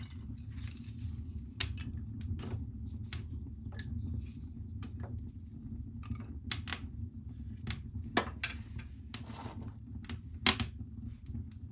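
Newly lit kindling fire crackling, with irregular sharp snaps and pops, the loudest about ten and a half seconds in, over a steady low hum.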